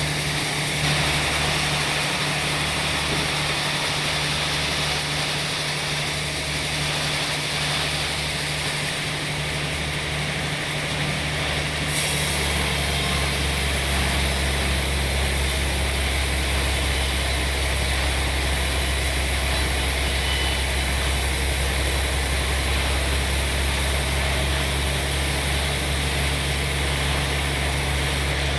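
Sawmill machinery running steadily: a low engine hum under a continuous noise. About twelve seconds in, the low hum grows louder and steadier.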